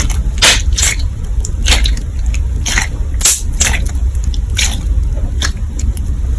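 Gummy slime being handled and squeezed, giving irregular sharp pops and clicks, about eight in six seconds, over a steady low rumble.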